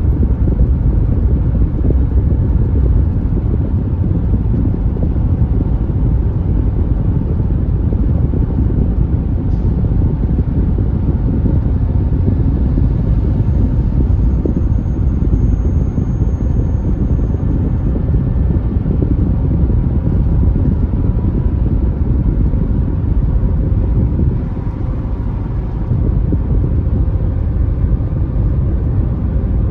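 Car cruising at highway speed, heard from inside the cabin: a steady low rumble of tyre, road and engine noise.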